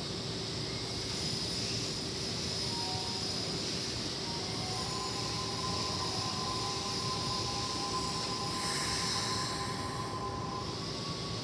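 Electric commuter train on the Keikyu line moving through the station, with steady high tones joining about halfway through and a short hiss near the end.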